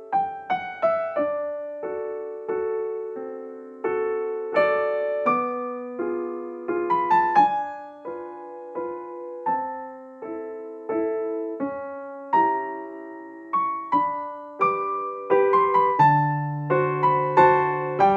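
Solo piano music: single notes and chords struck a couple of times a second, each fading away, with lower bass notes coming in near the end.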